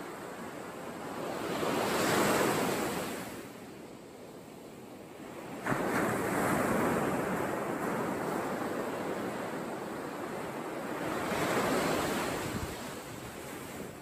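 Surf: small waves breaking and washing up a sandy shore, the sound swelling and fading every four to five seconds, with some wind.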